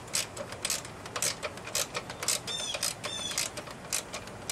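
Ratchet wrench clicking in quick, uneven strokes as bolts on a reel mower's steel handle brace are run down, with a short metallic squeak on some strokes.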